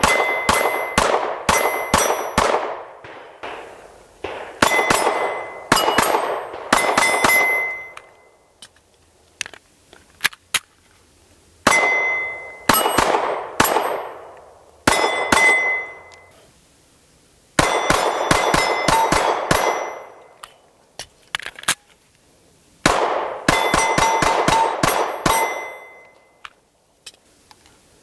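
Walther PPS M1 9mm pistol fired in several strings of quick shots. The bullets strike steel plate targets, which clang and ring briefly after each string.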